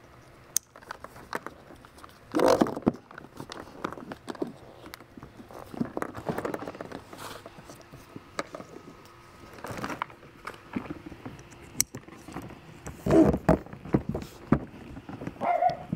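Plastic parts of an Oru Lake folding kayak being handled during assembly of the seat and footrest: scattered clicks, knocks and rustling, with louder bumps about two and a half seconds in and again around thirteen seconds.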